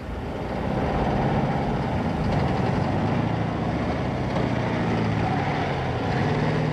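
Truck engine running steadily, a low hum under a broad rushing noise.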